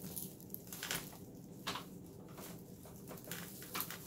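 Plastic body and parts of a Dyson DC18 upright vacuum being handled: a handful of separate light clicks and knocks, over a faint steady low hum.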